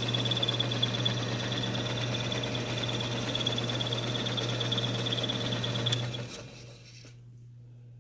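Ammco 4000 brake lathe running at speed, a steady motor hum with a high whine. About six seconds in there is a click and the whine cuts off, leaving only a faint hum as the lathe is shut off.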